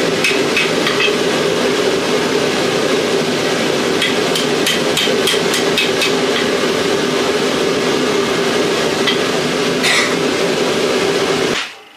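Hand-hammer blows ringing on hot steel during rough forging of a knife blade from an old file, in quick runs of strikes, over a steady loud rushing noise. Everything cuts off abruptly near the end.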